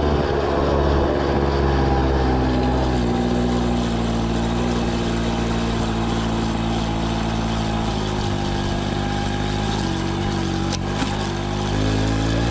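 Peugeot 103 moped's single-cylinder two-stroke engine running while riding, its pitch easing off about two seconds in, then holding steady before dipping and rising again near the end, with a single short click shortly before the rise.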